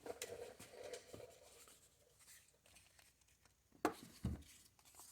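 Faint rustling and handling noise at a workbench, followed by two sharp clicks close together about four seconds in.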